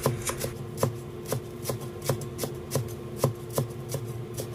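Chinese cleaver chopping spring onions on a wooden chopping board, an even run of knocks about three a second.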